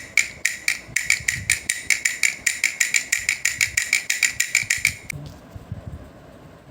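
Homemade drum toy car of cardboard and bamboo sticks being rolled, its sticks beating the drum in a fast, even rattle of about six strikes a second. The drumming stops about five seconds in.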